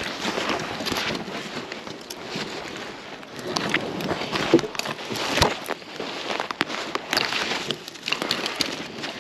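Irregular crunching and scraping in snow, with sharp crackles and a few louder knocks, as a person makes their way down a snowy slope on foot and sliding.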